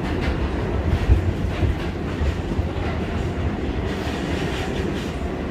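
New York City Subway A train car running through the tunnel, heard from inside the car: a steady rumble with a few wheel clacks over the rail joints.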